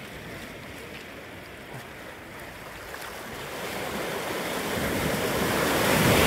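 Sea waves on a beach: a low steady wash, then a wave building from about halfway and breaking loudly near the end.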